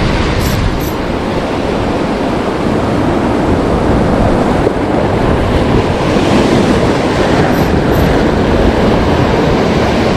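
Heavy high-tide surf breaking and washing against the shore in a loud, steady rush with a low rumble.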